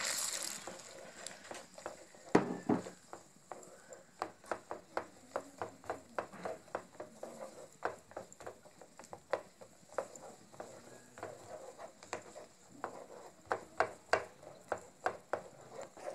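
Wooden spatula stirring cashews and raisins through hot caramelized sugar in a nonstick pan, clicking and scraping against the pan about two or three times a second. A short hiss as the dry fruits are tipped in at the start, and a louder knock a little over two seconds in.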